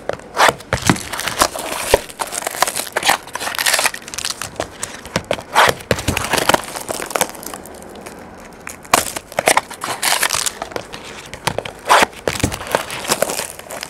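Crinkling and tearing of the plastic wrap and foil packs of a 2011 Bowman Sterling baseball card box being opened and handled, in irregular crackly bursts with a quieter stretch a little past halfway.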